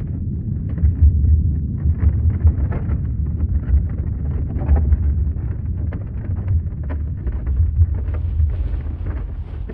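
Deep, continuous earthquake rumble with scattered crackling and rattling on top.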